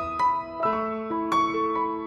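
Background piano music: single notes and chords struck every few tenths of a second and left ringing.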